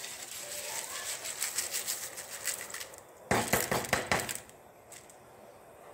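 Washed rice poured into a metal pot of boiling onion-browned water, the water crackling and bubbling as the grains go in. A little past three seconds in there is a brief loud metallic clatter against the pot, then only a quiet simmer.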